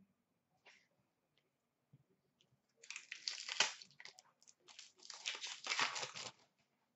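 Plastic wrapper of an Upper Deck Series 2 hockey card pack being torn open and crinkled by hand, in two bursts about three and five seconds in.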